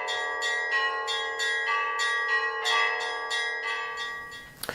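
Church bells ringing a quick peal, about three strikes a second, their tones ringing on between strikes and fading near the end.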